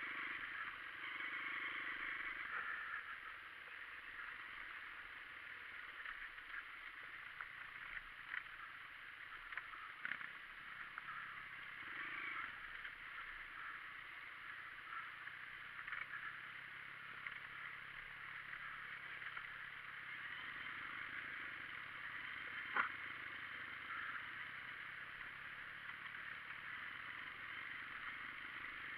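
Dirt bike ridden along a rough trail, picked up faintly and muffled by a handlebar-mounted camera: a steady rushing noise with constant small rattles and ticks from the bike over the ground, and one sharper knock about 23 seconds in.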